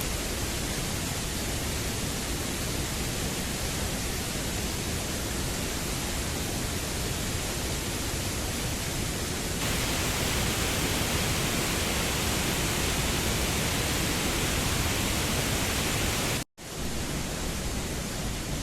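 Steady rushing noise with no tones or rhythm. It turns brighter and a little louder about ten seconds in, and cuts out for an instant near the end.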